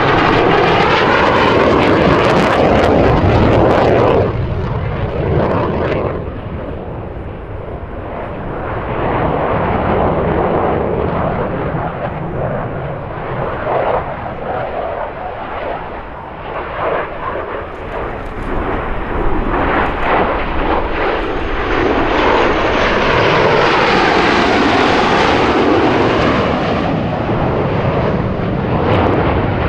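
F-16 Fighting Falcon jet engines flying by in several passes. The sound swells and fades, loudest at the start and again through the second half, with the pitch sweeping as the jets go past.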